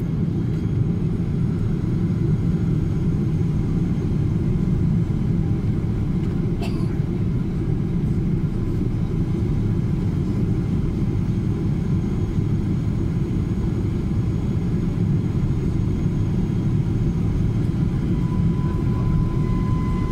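Airliner cabin noise during the descent to landing: a steady, low rumble of engines and airflow heard from a window seat. A faint click comes about six and a half seconds in, and a faint thin tone joins near the end.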